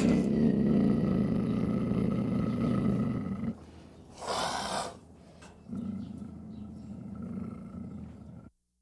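Lion growling: a long, loud, low growl, a short breath about four seconds in, then a second, quieter growl that cuts off suddenly near the end.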